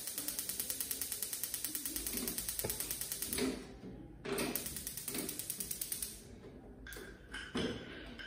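Paloma gas stove's spark igniter ticking rapidly and evenly, many ticks a second, as a burner push button is pressed: a run of about three seconds, then a shorter second run. A few knocks near the end as the stove body is handled.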